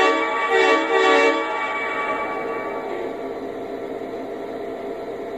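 Model diesel locomotive sound system, SD70-series, playing a short chord air-horn blast about half a second in, with the tail of an earlier blast at the very start. Then only the simulated diesel prime mover runs steadily, a little quieter.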